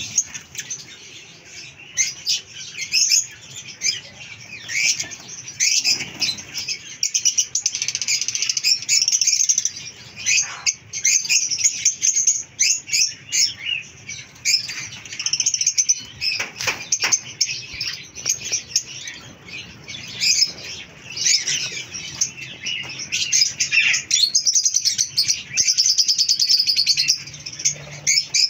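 A flock of rosy-faced (peach-faced) lovebirds chattering: a constant din of rapid, shrill chirps from many birds at once, with the flutter of wings as some fly between perches.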